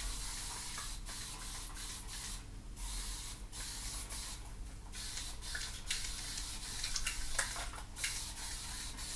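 Hand-held pump spray bottle spritzing water onto wet hair: a run of hissing sprays with short breaks between them.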